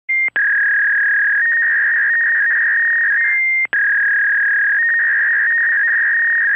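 Loud, steady electronic tones around 2 kHz that step back and forth between two pitches, cut short by a click about a third of a second in and again partway through.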